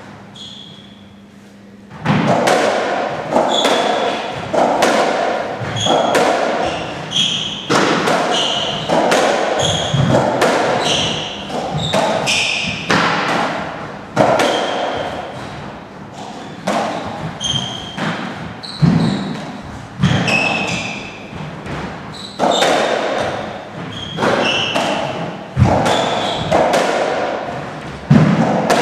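A racketball rally on a squash court: a rapid series of sharp hits as the ball is struck by the rackets and smacks against the walls and floor, echoing in the enclosed court. The hitting starts about two seconds in, after a quiet moment between points.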